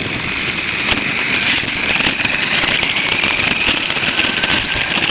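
Battery-electric RC car running: a motor whine over a rough, crackling rattle of tyres and chassis on the ground, picked up close by a camera riding on the car.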